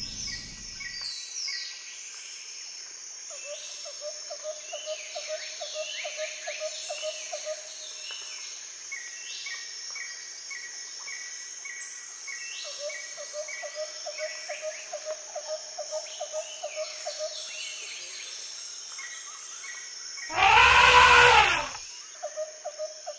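Outdoor nature sound: a steady high insect drone with birds calling, in short repeated notes and quick falling chirps, and runs of a low pulsing call at about three pulses a second. Near the end a single loud animal call of about a second and a half rings out above everything else.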